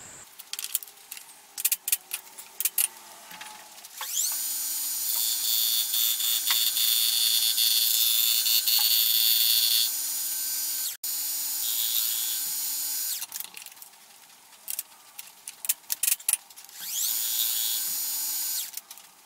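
Milling machine spindle running with a fly cutter taking a facing cut across a bronze casting: a steady high whine with the scrape of the cut, after a few light clicks of handling. It drops away about two-thirds through and comes back briefly near the end for another pass.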